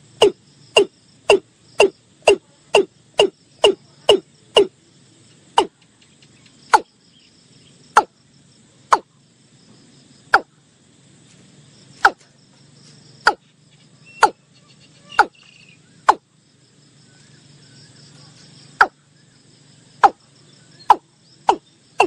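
Watercock calling: a long series of short, sharp notes, each dropping slightly in pitch. They come about two a second at first, slow to about one a second, pause for a couple of seconds, then quicken again near the end.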